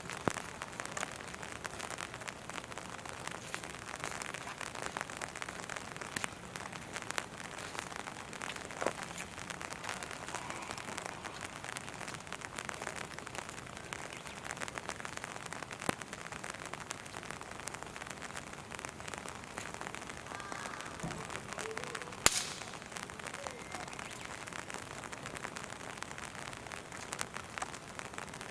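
Steady rain falling, with many sharp drops ticking close by and one louder tap about three-quarters of the way through.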